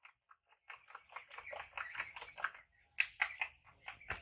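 Quick run of light clicking taps of a utensil beating egg in a ceramic bowl, pausing briefly before a few more taps, then one sharper knock near the end.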